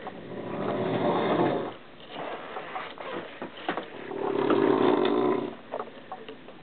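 A man snoring loudly in his sleep: two long snores, about four seconds apart, with quieter breathing between them.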